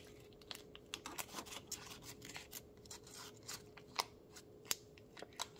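Paper wrapper of a stick of butter crinkling as it is peeled open: a scatter of small crackles and ticks, with a faint steady hum underneath.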